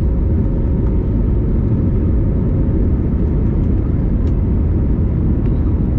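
Airbus A321neo cabin noise on the takeoff roll, heard at a window seat over the wing: its Pratt & Whitney geared-turbofan engines at takeoff power and the wheels rumbling on the runway, a steady loud low rumble with a faint steady tone through it.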